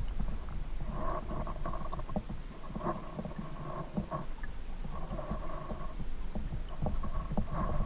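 Muffled underwater sound picked up by a GoPro Hero2 in its waterproof housing: a steady low rumble with scattered clicks and ticks, and short hollow tones coming and going every second or two.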